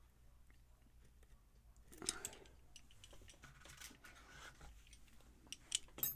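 Faint clicks and scratching of a lock pick working the pins of a pin-tumbler lock held in a false set, with a few sharper clicks near the end.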